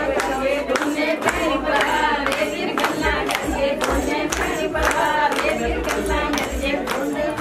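A group of voices singing together, with sharp claps keeping a steady beat about twice a second.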